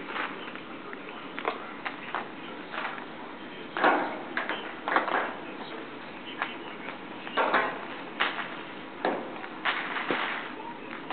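Light hollow plastic ping pong balls clicking and clattering against each other on carpet as small animals push through them and a hand scoops them up. Irregular taps come in bursts, the loudest about four, five and seven and a half seconds in.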